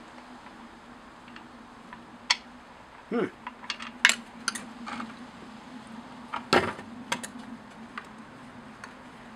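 Metal hand tools clicking and clinking against a Stihl 020 chainsaw being worked on at the clutch side. The sharp clicks and knocks come at irregular moments, loudest about four and six and a half seconds in, over a faint steady hum.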